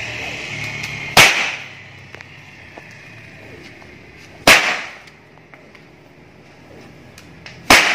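Three loud cracks of a long 3.4-metre braided Javanese jaranan whip (pecut Tunggul Kencono), about three seconds apart, each with a short fading ring after it, as the whip is tested for its crack.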